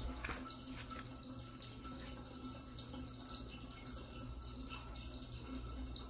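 Pages of a picture book being turned by hand: a couple of faint paper rustles and taps, about a third of a second and a second in, over a faint steady hum.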